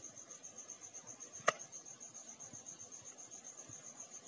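A cricket chirping faintly and steadily, a high pulsing note repeating about eight times a second. About a second and a half in there is a single sharp click, the loudest sound.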